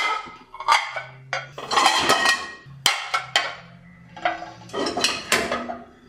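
Ceramic plates clinking and knocking against one another as they are lifted out of a dishwasher rack and stacked, a run of sharp clinks that each ring briefly.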